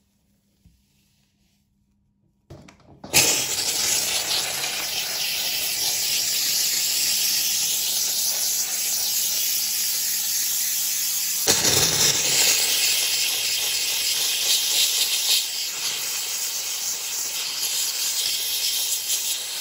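Kärcher SC3 steam cleaner jetting steam from its hand nozzle: a loud, steady hiss that comes on after about two and a half seconds of near silence and keeps going.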